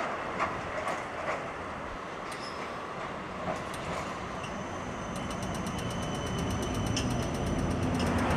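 D1-class Siemens Combino low-floor tram running along the track toward a stop, its wheels clicking sharply a few times early on. From about halfway a steady high whine and a fast, even ticking come in, and the sound grows louder as the tram draws close.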